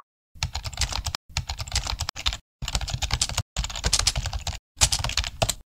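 Computer keyboard typing sound effect: six runs of rapid key clicks with short pauses between them, matching text being typed out on screen.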